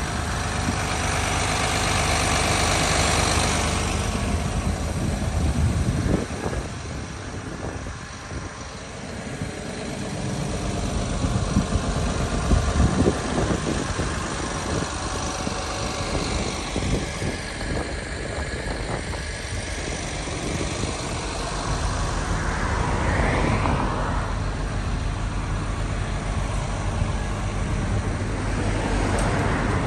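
Komatsu PC360NLC-10 excavator's six-cylinder diesel engine idling steadily. Irregular louder knocks and rustles come over it about a third of the way through.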